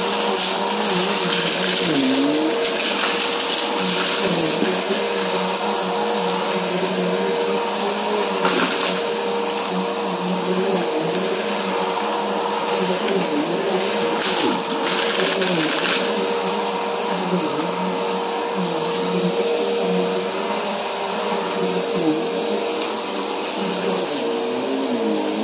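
Helix upright vacuum cleaner running continuously as it is pushed back and forth over a rug to pick up fine dirt: a steady motor hum and air hiss, its lower pitch dipping and rising with the strokes, with a few brief louder hissing surges.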